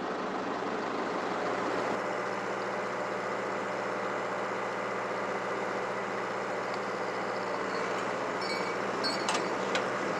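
An engine idling steadily, a constant mechanical hum, with a few sharp clicks near the end.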